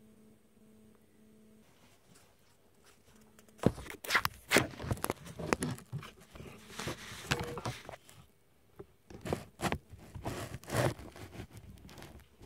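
A faint steady hum, then from a few seconds in an irregular run of rustling, scraping and knocking noises, with a short lull partway through. The noises die away near the end.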